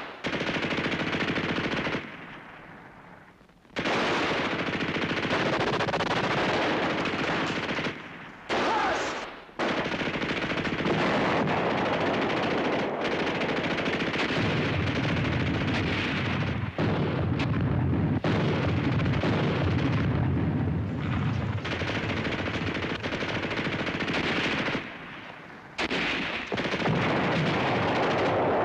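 Sustained battle gunfire, with machine-gun fire in long continuous bursts. It breaks off briefly about two seconds in, again around eight seconds and once more near the end. A heavy low rumble runs underneath through the middle.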